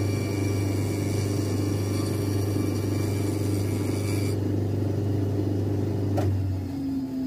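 Shoe finishing machine's motor running steadily while its groover cuts a stitch channel into a leather sole, a grinding hiss that stops about four seconds in. The motor keeps running, with one sharp click about six seconds in, and then winds down near the end.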